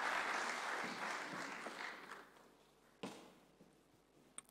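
Congregation applause tapering off and dying away over the first two seconds or so. After it come a sharp knock about three seconds in and a few faint footsteps on the stage.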